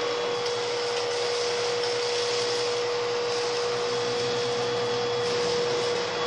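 Hoover Rhapsody RA22HCG cordless stick vacuum running steadily with an even motor whine as it sucks up cereal flakes from laminate panel flooring. Its battery is heavily discharged.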